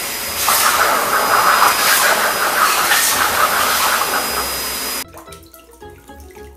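Pet grooming blow dryer blowing a steady rush of air with a high whine. It gets louder about half a second in, then cuts off suddenly about five seconds in.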